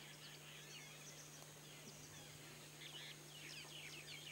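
Near silence: faint room tone with a steady low hum, and faint high chirps in the second half.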